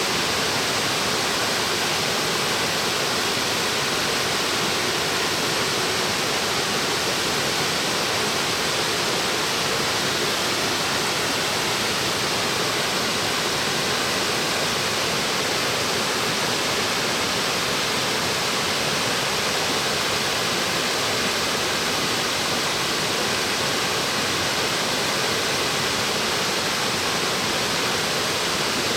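A 40 m branching waterfall, its water falling in several streams, rushing steadily: an even, unbroken hiss of falling water.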